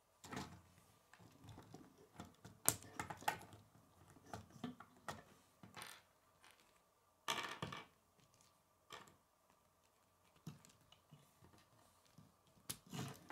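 K'nex plastic pieces being handled and clicked together onto a model car: irregular small clicks and knocks, with louder clattering clusters about three seconds in, around seven seconds and near the end.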